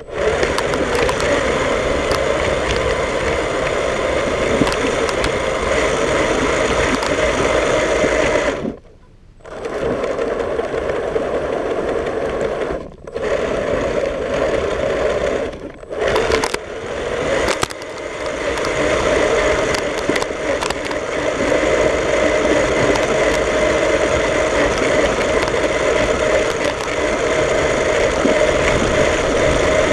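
Motor and drivetrain of a radio-controlled snow plow whirring steadily as it pushes its blade through snow. The whir cuts out for about a second roughly a third of the way in, and dips briefly a couple more times.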